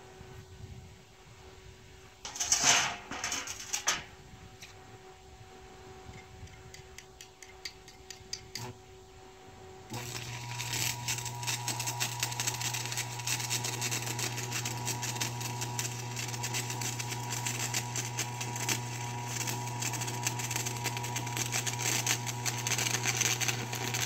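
Arc welder laying a weld bead on steel: a brief loud burst of arc crackle about three seconds in, then from about ten seconds a continuous fast crackle over a steady electrical hum, which stops abruptly at the end.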